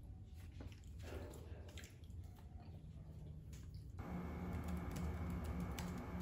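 Soft, scattered clicks and rustles, then from about four seconds in, typing on a laptop keyboard: a fast run of light key clicks.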